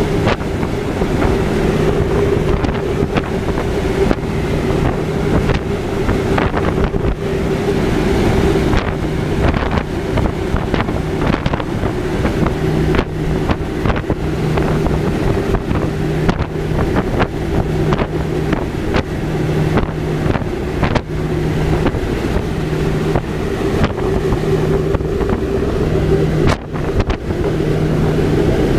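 Shorts Skyvan's twin turboprop engines droning steadily in flight, with wind rushing and buffeting the microphone through the open rear door. A low hum underneath beats in and out in the second half.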